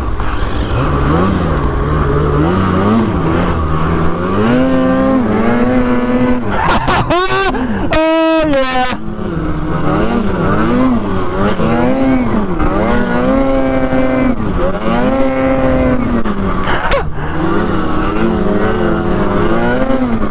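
Polaris Pro RMK snowmobile's two-stroke engine revving up and down as the sled is ridden, the throttle rising and falling about once a second. About a third of the way in, the revs surge high, the engine sound briefly drops out, then the riding rhythm picks up again.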